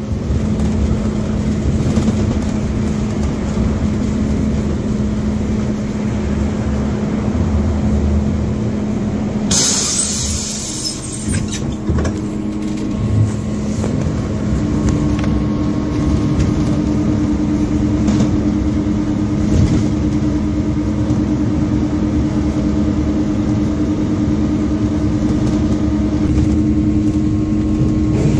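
MAZ 205 city bus running, heard from inside: a steady engine hum with a constant tone. About ten seconds in comes a loud hiss of compressed air lasting a second or two, the sound of the bus's air system (doors or brakes). A little later a second steady tone joins the hum.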